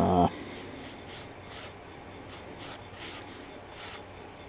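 Pencil sketching on paper: short scratchy strokes, about two a second. A brief voice sound right at the start is the loudest moment.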